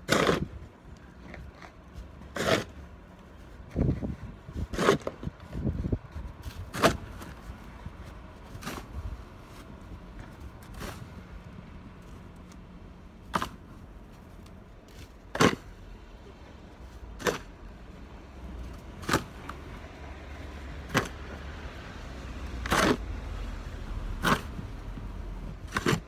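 Snow shovel scraping and striking the walkway as snow is cleared, about one stroke every two seconds, over a steady low rumble.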